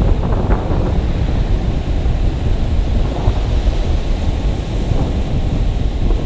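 Wind buffeting the microphone in a steady low rumble, with faint scraping of hands digging through dry beach sand.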